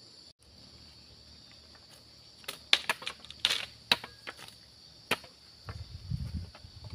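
Steady high chirring of crickets. About two and a half seconds in, a cluster of sharp clicks and knocks comes over it, and low thumping rumbles follow near the end.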